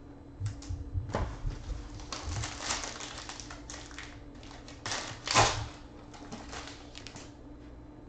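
Foil wrapper of a Topps Tribute baseball card pack being torn open and crinkled, an irregular run of crackles. The loudest tear comes about five seconds in.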